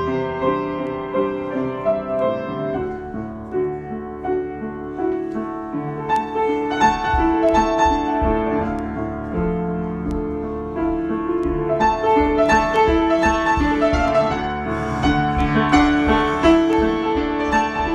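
Solo piano improvisation: sustained chords under a slow melody. The playing turns busier from about seven seconds in, with repeated deep bass notes.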